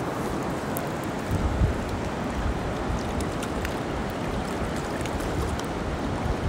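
Steady rushing of river water, with low wind buffeting on the microphone in gusts.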